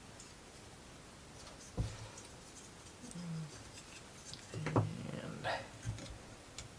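Plywood model-kit pieces being handled and pressed together: a few light knocks and clicks, with faint scraping between them.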